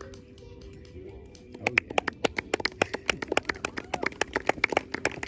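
A few people clapping close by. The claps are sharp and separate, several a second, and start about a second and a half in, over faint music.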